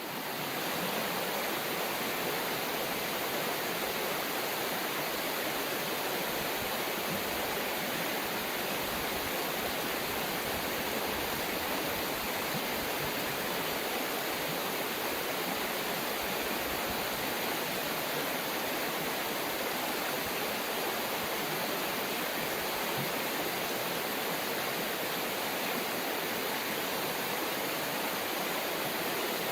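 River water rushing steadily, an even, unbroken hiss that fades in at the start.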